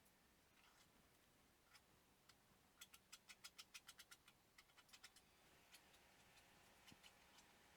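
Near silence: faint room tone with a quick run of about a dozen faint ticks near the middle and a few scattered single clicks.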